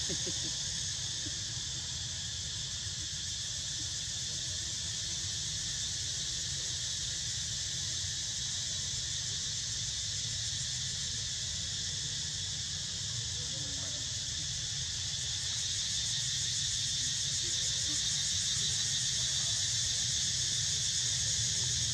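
A steady, high-pitched insect chorus droning, growing a little louder after about fifteen seconds, over a low rumble.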